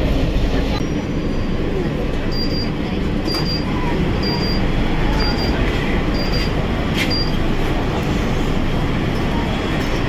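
Steady running noise inside a Kolkata Metro carriage at a station stop, with the door warning beeper sounding six short high beeps about a second apart as the doors stand open.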